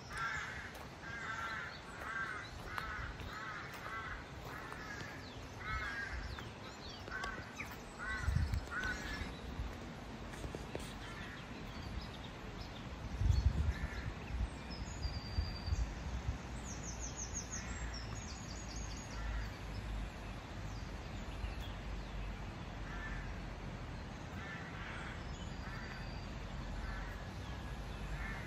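Crows cawing over and over, about two calls a second for the first nine seconds, then fewer and fainter calls. A small songbird trills briefly midway, and two low thuds break in, the louder about 13 seconds in.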